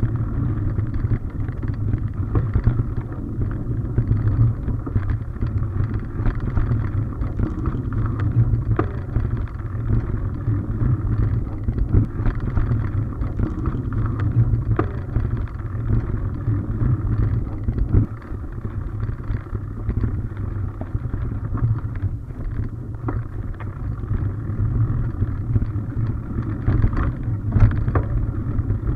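Mountain bike rolling fast along a dirt forest singletrack, heard from a camera mounted on the bike or rider: a steady low rumble of tyre and ride noise with wind on the microphone, broken by scattered short knocks and rattles as the bike goes over bumps.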